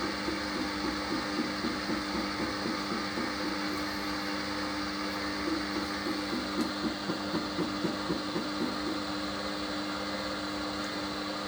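Hoover HLW585DC washer dryer's drain pump running with a steady hum as it empties the drum after the main wash, with faint irregular patters over the hum.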